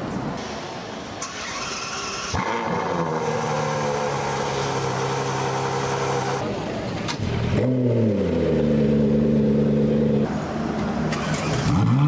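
Car engines starting up one after another, in abrupt cuts. Each catches with a short flare of revs, then settles into a steady idle.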